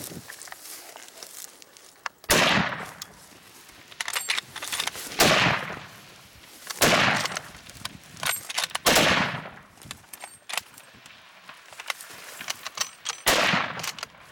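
Five rifle shots fired at an elephant, spaced unevenly over about eleven seconds. Each is a sharp crack with an echo that fades over about half a second. Faint clicks come between the shots.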